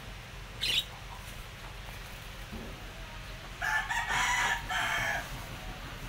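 A rooster crows once, starting about three and a half seconds in and lasting about a second and a half. A short high bird chirp comes just under a second in.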